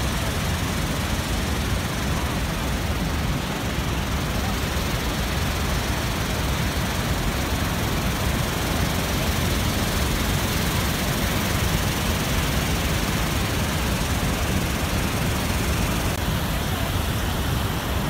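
Steady, loud rush of a large waterfall: a wide river pouring over rock ledges into churning white water.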